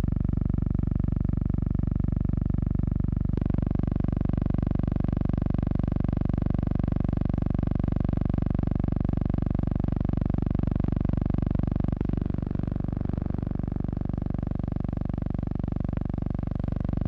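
A steady, loud buzzing hum with a fast, even flutter, shifting slightly in tone about three seconds in. It is noise from the transfer of a mute film, not the sound of the rockets.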